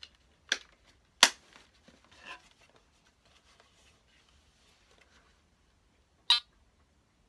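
Sharp clicks and knocks from handling a Teknetics Delta 4000 metal detector's control housing just after a 9-volt battery has been fitted: three clicks in the first two and a half seconds, the loudest about a second in, then a short rattling click near the end.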